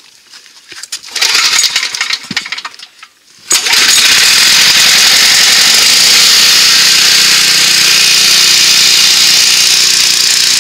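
Briggs & Stratton 10 HP OHV engine of a Troy-Bilt 5550-watt portable generator being pull-started on choke: a couple of seconds of irregular rattling and clicking, then the engine catches suddenly about three and a half seconds in and runs loud and steady.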